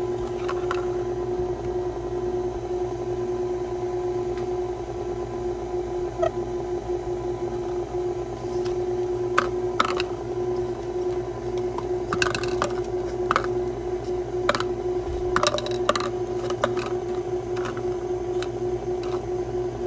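Electric mixer motor running with a steady hum, with scattered light clicks and taps from handling, thicker in the second half.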